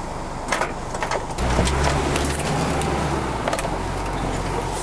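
An off-road 4x4's engine running while driving, its low drone growing louder about a second and a half in, with scattered knocks and rattles.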